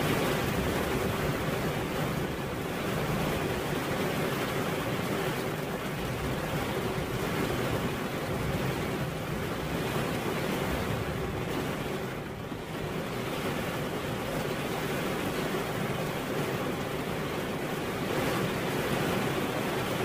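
Steady rain falling, a dense even hiss that eases briefly midway.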